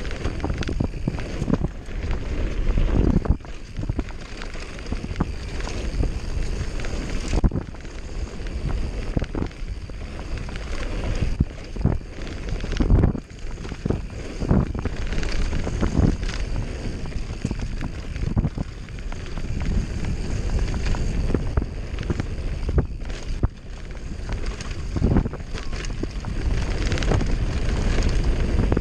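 Wind buffeting the microphone of a camera riding on a downhill mountain bike at speed, over the tyres rolling on a dirt trail. The bike rattles and knocks at frequent, irregular intervals as it runs over bumps.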